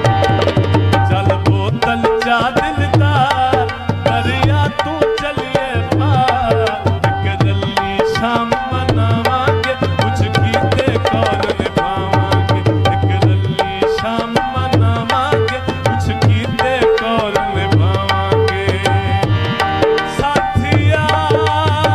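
Instrumental passage of live Punjabi folk music: fast hand-drum strokes with deep bass beats, under a wavering melody line and held drone notes.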